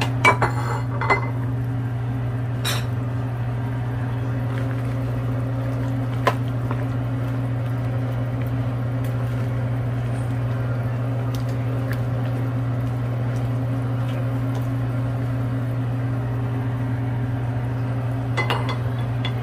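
A ladle stirring soup in a large pan and knocking against it: a few clinks in the first three seconds, one about six seconds in, and a couple near the end, over a steady low hum.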